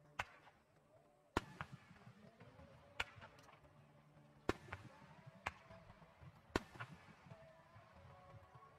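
Aerial firework shells bursting: six sharp booms spaced roughly one to one and a half seconds apart, several of them followed by smaller cracks.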